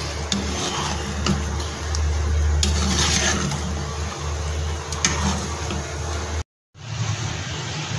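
A ladle stirring a simmering curry in a nonstick pot, with a few light taps and scrapes against the pot over a steady low hum and hiss. The sound drops out for a moment near the end.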